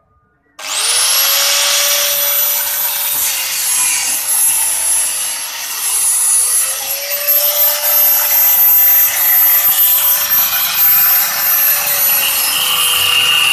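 Electric angle grinder with a cutting disc starting up about half a second in and cutting through a rusty exhaust pipe: a loud steady whine over grinding noise, its pitch dipping briefly a few times as the disc is pressed into the metal.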